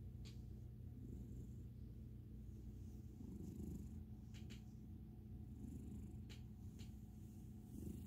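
Domestic cat purring steadily while being stroked: a low rumble that swells and eases about every two seconds with its breathing.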